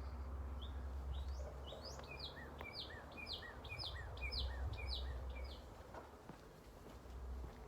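A songbird singing a quick run of short, repeated whistled notes that slide downward, about three a second for some five seconds, over a steady low rumble.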